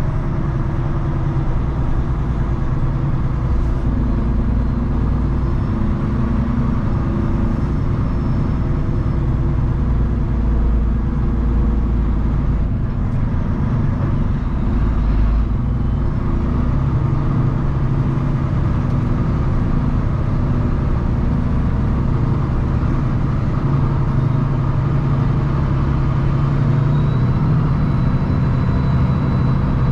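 Kenworth W990 log truck's diesel engine running steadily while driving, a low drone whose note shifts about 4 seconds in and again about 16 seconds in.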